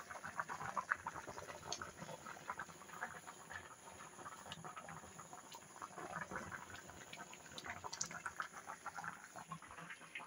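Soft, irregular crackling and popping from a pot of rice cooking on the boil.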